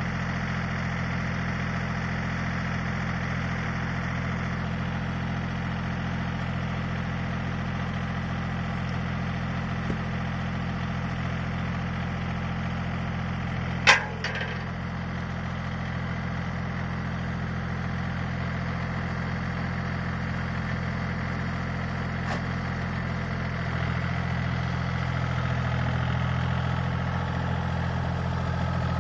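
Yanmar F215 compact diesel tractor idling steadily, with one sharp knock about halfway through. Near the end the engine note picks up as the tractor moves off.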